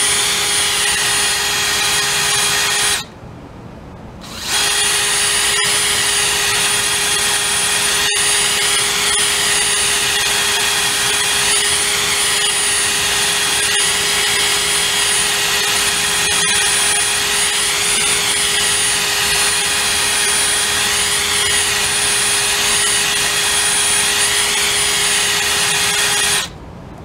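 DeWalt cordless drill spinning a wheel cylinder hone at high speed inside a rusty pintle hitch sleeve, honing rust out of the bore. Its motor whines at a steady pitch, stops briefly about three seconds in, then runs on until near the end.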